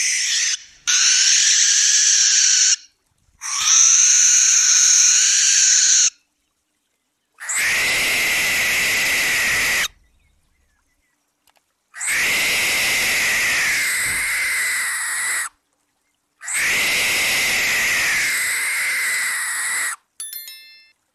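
Barn owl screeching: a run of about six long, harsh, hissing screams, each two to three seconds long, separated by short gaps of silence.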